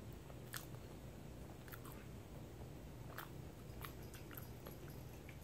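A person quietly chewing a bite of microwaved corn dog, with a few faint, scattered mouth clicks.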